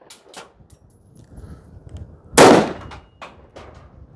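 A single shot from a short-barrelled SIG rifle in 5.56 a little over two seconds in. Ejected brass casings land with small clinks just after the start and again about a second after the shot.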